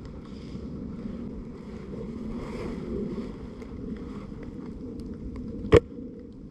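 Steady wind rumble on the microphone, with one sharp crack near the end.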